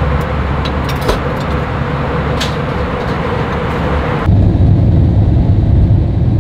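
Airliner cabin noise in flight: a steady jet drone with a faint held tone and a few light clicks. About two-thirds of the way through it cuts suddenly to a louder, deeper rumble with less hiss, heard as the plane descends on approach over the city.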